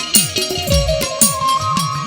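Gujarati devotional folk music: a quick drum rhythm with low strokes that slide in pitch and crisp high hits, under a held, gliding melody line.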